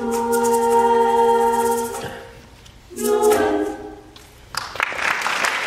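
Female a cappella vocal ensemble holding a sustained chord for about two seconds. A short closing chord follows about three seconds in. Audience applause breaks out about a second after that.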